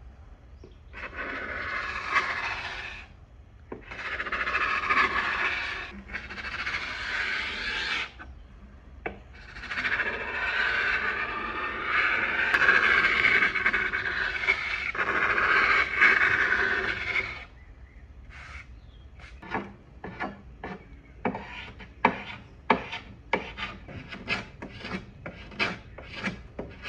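Carbide paint scraper scraping sprayed-on paint off a wooden veneer drawer. It makes several long rasping strokes, then from about two-thirds of the way through, quick short strokes about two a second.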